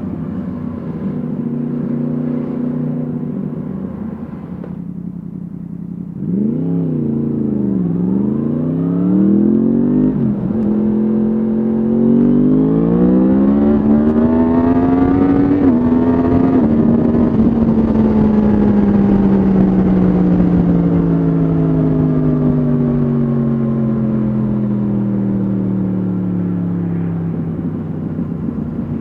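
Yamaha MT-10 SP's crossplane inline-four through an Akrapovic exhaust, heard from the rider's seat. It runs steadily, then blips the throttle twice, pulls hard with rising revs to a gear change, and winds down slowly as the bike slows.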